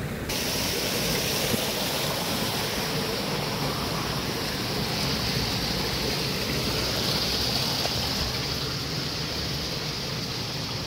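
Steady rushing of water flowing in a small channel, starting abruptly just after the start.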